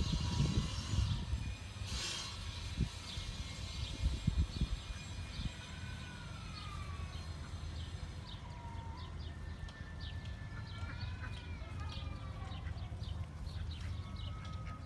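Chickens calling with long, gliding calls, over many short high chirps, with a few thumps in the first few seconds.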